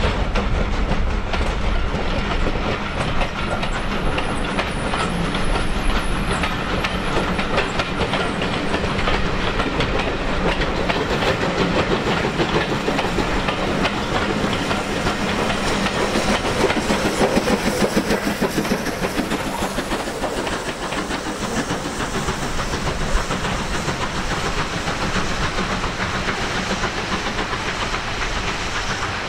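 Passenger coaches rolling past with their wheels clicking over the rail joints, followed by a USATC S160 2-8-0 steam locomotive at the rear of the train working hard, its exhaust and hiss loudest about halfway through, and the sound dropping slightly near the end.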